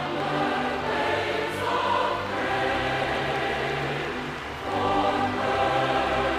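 Choir singing held, sustained notes, dipping briefly about four and a half seconds in before swelling again.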